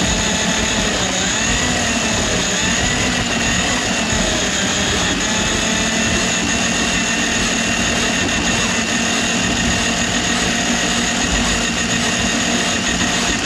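Electric drum-type drain cleaning machine (General Wire Super-Vee) running steadily, its motor whining as the spinning cable is fed into a kitchen drain line to break up a grease clog.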